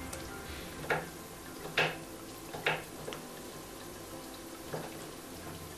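Chopped onions frying in olive oil in a pan: a faint sizzle broken by a handful of short, sharp spits of oil about a second apart.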